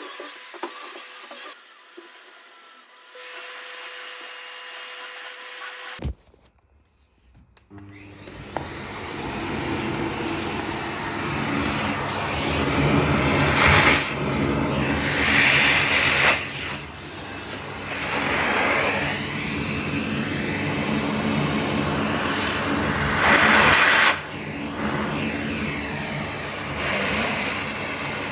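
Vacuum cleaner switched on about eight seconds in, its motor winding up to a high whine and then running loudly, with a few louder rushing surges along the way.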